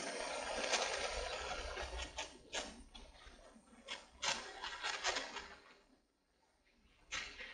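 Handheld gas-cartridge torch's flame hissing as it heats a metal joint for soldering, with irregular sharp crackles or taps in the middle. The hiss drops almost to silence for about a second near the end, then returns.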